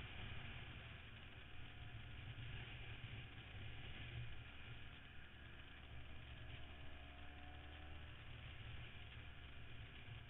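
Motorcycle engine running at a steady cruising pitch, heard from the moving bike, with constant wind noise on the microphone.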